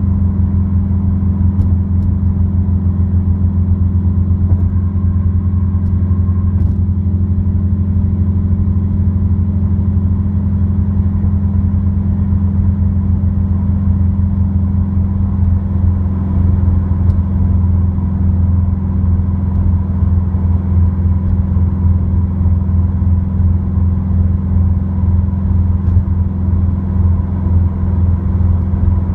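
Subaru WRX with an Invidia N1 dual-exit exhaust cruising, heard from inside the cabin: a steady, deep exhaust drone under road noise. The drone's tone shifts slightly about halfway through.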